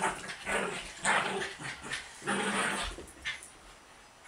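Small chihuahua–French bulldog mix dog growling and barking in rough play, a string of short bursts that die down near the end.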